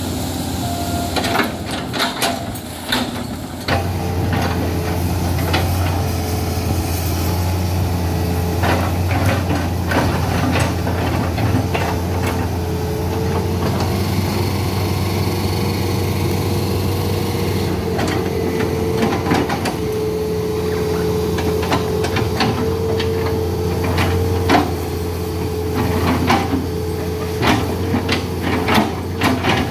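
Crawler excavator's diesel engine running steadily and picking up about four seconds in, with repeated sharp knocks and cracks as the bucket strikes and splits a felled oil palm trunk.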